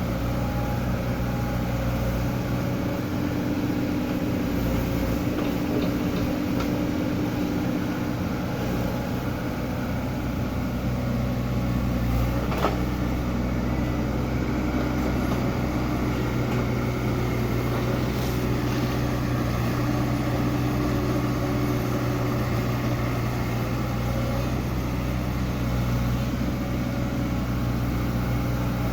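Excavator's diesel engine running steadily under work, with a single sharp knock about twelve seconds in.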